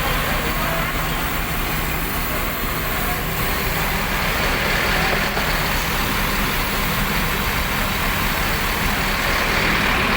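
A bus engine idling steadily, with a low even hum and a constant hiss over it.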